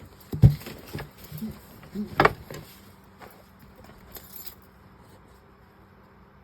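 A few knocks and rattles, loudest about half a second in and just after two seconds, then only a faint steady hum.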